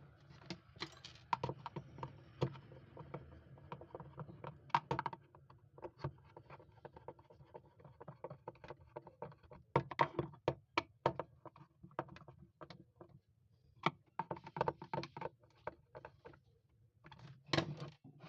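Irregular clicks and knocks of hard blender parts being handled and fitted together, coming in loose clusters with short pauses between them.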